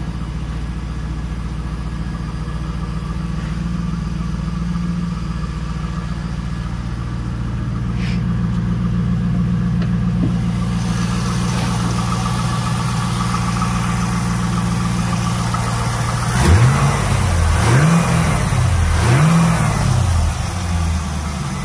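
2002 Chevrolet Camaro Z28's LS1 V8 idling steadily, then revved three times near the end, each rev rising and falling back to idle.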